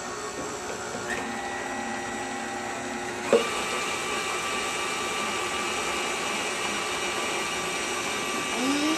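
Electric tilt-head stand mixer running, its beater turning brownie batter in a stainless steel bowl, with a steady motor whine. Just over three seconds in there is a click and the whine jumps to a higher pitch and gets louder.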